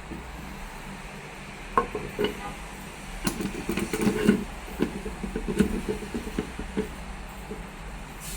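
Metal parts of a crimping machine being handled and fitted during assembly: a couple of clicks about two seconds in, then a run of irregular knocks and clinks for several seconds.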